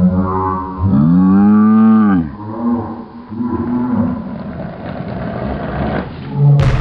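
A single long, low mooing call about a second in, rising and then falling in pitch, over a background of mixed outdoor noise.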